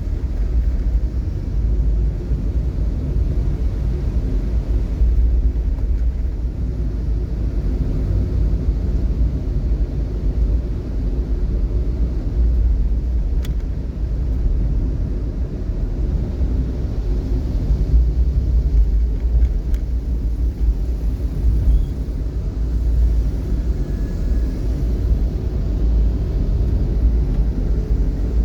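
Vehicle driving in slow traffic: a steady low rumble of engine and road noise.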